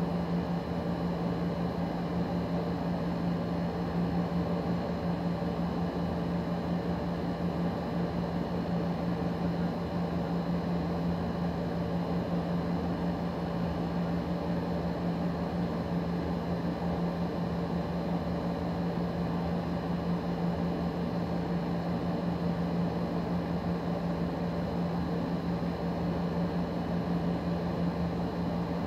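Steady machine hum: a constant low drone with an even whirring noise over it, unchanging throughout.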